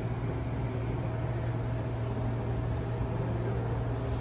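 Steady low hum of a stationary WMATA 7000-series Metro train's on-board equipment, over a constant background rumble, unchanging throughout.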